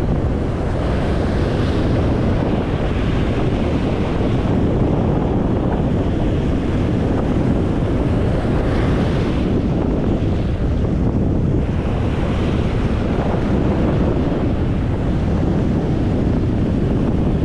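Strong wind buffeting the microphone with a steady low rumble, over surf breaking on the beach, its hiss swelling several times as waves come in. This is stormy, windy weather on the shore.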